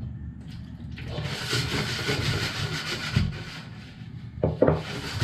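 Wire balloon whisk swishing through liquid egg yolks and scraping against a large stainless-steel bowl as dissolved coffee is poured in, in two spells of about two seconds and half a second.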